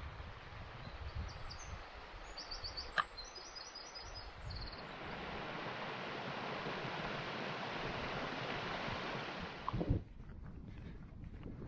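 Small birds chirping over wind rumbling on the microphone, then from about five seconds in the steady rush of a beck tumbling over a small rocky cascade, which cuts off abruptly near the end.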